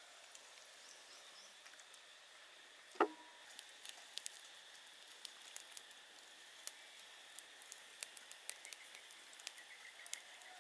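Scattered small clicks and crackles over a steady hiss of forest background, with one sharper knock about three seconds in.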